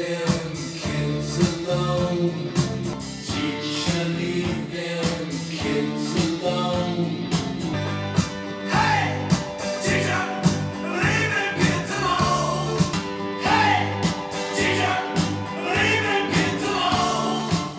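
A song with a steady beat and bass played through a Martin Logan Motion Series XTW5-LCR in-wall speaker as a listening demo; a singing voice comes in about halfway through.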